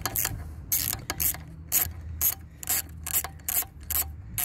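Hand ratchet wrench with an 8 mm socket clicking in short bursts, about two a second, as it is swung back and forth to back out the bolt holding the anode on the Bravo 3 outdrive's trim cylinder.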